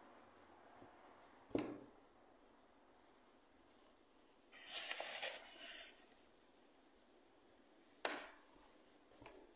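A hand working bread dough in a glass mixing bowl: two sharp knocks, about a second and a half in and again near the end, and a rustling scrape lasting over a second in the middle.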